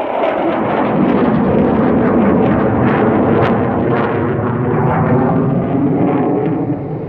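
Military jet engines roaring as the jets fly past, the roar dropping in pitch over the first couple of seconds as they pass, then holding as a steady deep rumble.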